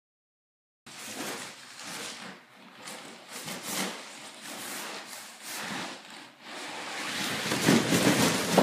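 Silence for about the first second, then a child on a green foam pad sliding and bumping down carpeted stairs. Uneven rustling and scraping with dull thumps, growing loudest near the end.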